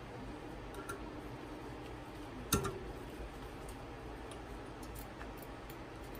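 Small scattered metallic clicks and ticks of screws being handled and started into the metal resin vat's frame with a small screwdriver, with one sharper click about two and a half seconds in.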